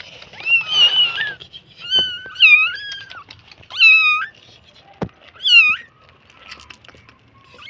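Newborn kittens mewing: about five high, wavering mews in quick succession, then a quieter stretch near the end.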